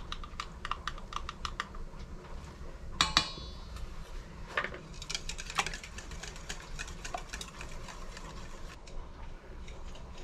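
Wire whisk beating eggs in a stainless steel bowl, a fast run of light clicks of the whisk against the metal in the second half. Earlier come lighter taps as dry mustard powder is shaken from a small glass jar into a measuring spoon, and one ringing metal clink about three seconds in.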